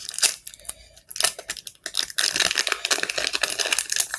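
A foil trading-card pack wrapper crinkling and crackling as it is handled and opened. A few scattered rustles come first, then a dense run of crinkling for about the last three seconds.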